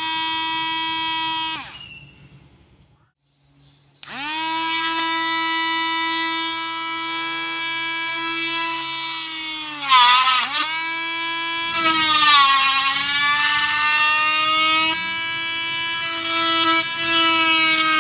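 Homemade cordless mini grinder's RS380 DC motor whining at high speed: a short run that spins down and stops, then, after about two seconds' pause, a restart that spins up to a steady whine. From about halfway on, the engraving bit cuts into plastic and the motor's pitch drops under the load, with a scraping sound.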